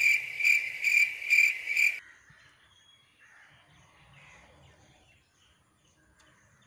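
A cricket chirring: one steady high-pitched tone that swells about twice a second, then stops abruptly about two seconds in. Only faint background sound follows.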